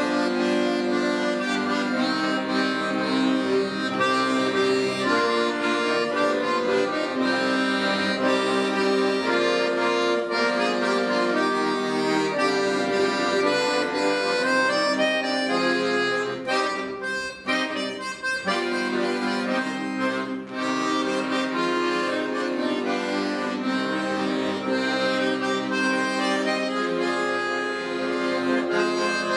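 An accordion ensemble playing, with sustained reedy chords under a melody. The music briefly thins out twice, about 17 and 20 seconds in, then carries on.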